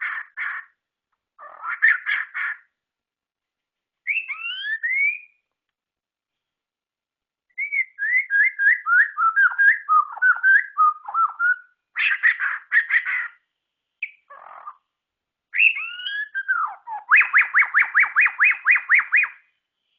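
White-rumped shama (murai batu) singing: varied phrases of clear whistles and rapid chattering notes broken by short pauses. The song ends in a fast run of about a dozen repeated notes.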